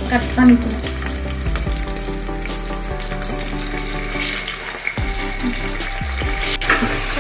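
Oil sizzling steadily in a pressure cooker as shallots and curry leaves fry in it, with background music underneath. A single sharp click comes about six and a half seconds in.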